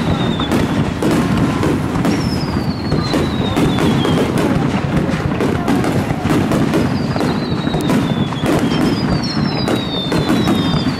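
Aerial fireworks shells bursting in quick succession over a steady low rumble, with several high whistles that slide slowly down in pitch.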